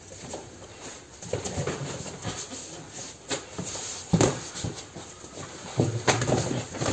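Kickboxing sparring with boxing gloves and shin guards on foam mats: gloved punches and kicks landing, feet scuffing on the mats, and sharp exhalations from the fighters. The loudest strikes come about three, four and six seconds in.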